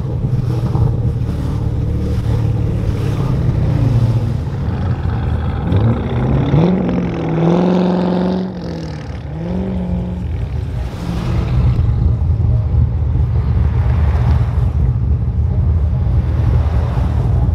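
Car engine running with a deep, steady rumble; about six seconds in, the engine is revved up, held for a moment and let fall back, then blipped once more.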